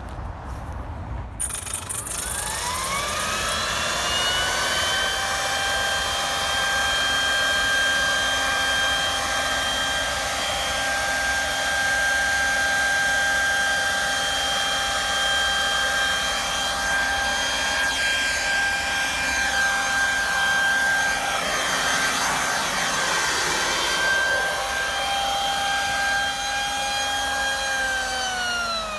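Corded electric leaf blower switched on: its motor spins up with a rising whine over a couple of seconds, runs at a steady high whine over the rush of air, and near the end is switched off and winds down with a falling whine.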